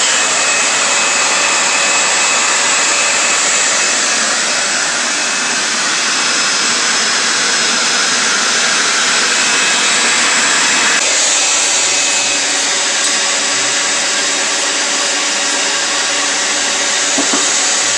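A blacksmith's forge running, giving a steady rushing noise. About eleven seconds in, a faint low hum joins it.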